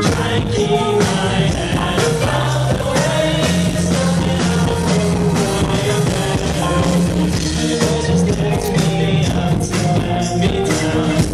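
Live rock band playing, with electric guitar, keyboards and drums, heard loud through a camcorder microphone in the crowd.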